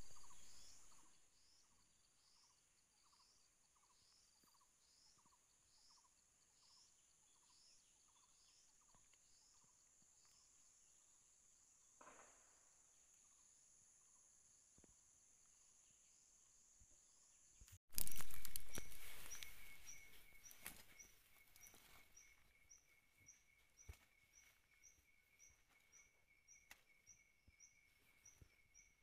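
Outdoor insect chorus: a steady high drone with a short chirp repeating about one and a half times a second. About two-thirds of the way through, a sudden loud rush fades away into a different chorus of night insects, a steady trill pulsing about twice a second, with scattered rustles and clicks.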